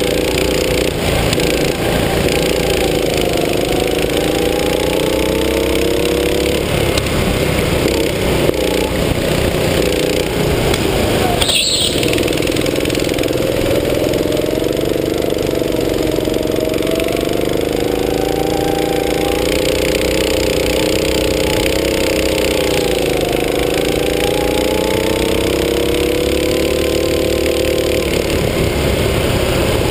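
Go-kart engine running hard, heard from on board the kart, its pitch rising and falling again and again as the throttle is opened and eased through the corners. A brief noise burst about twelve seconds in.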